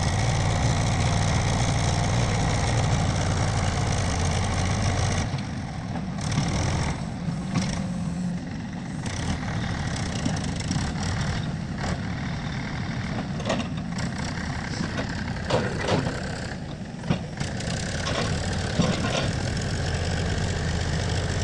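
A tractor engine running steadily. About five seconds in its sound thins and varies, with scattered knocks and clanks through the middle stretch, then the steady engine sound returns near the end.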